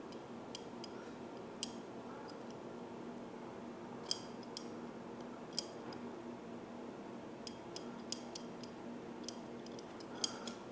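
Sparse, faint clicks and light ticks from hands working a turn signal's thin wire back through its insulation sleeve, over a steady low hum.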